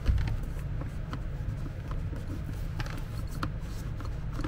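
Scattered soft clicks and light knocks of a plastic control box and its cables being handled and turned over, over a low steady hum.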